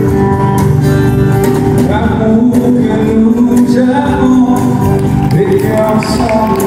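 Live country-western music: several acoustic guitars strumming, with a man's voice singing.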